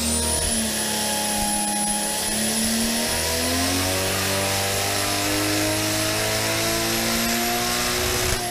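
Turbocharged Toyota 2JZ inline-six running under load on an engine dyno: a high turbo whine held steady over the engine note, which climbs slowly in pitch from about three seconds in as the revs rise during a boost run.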